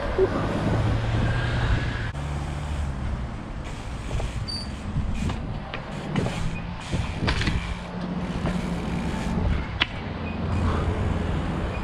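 Trials bike rolling over stone paving: a steady low rumble from the tyres and frame, with a couple of sharp knocks later on.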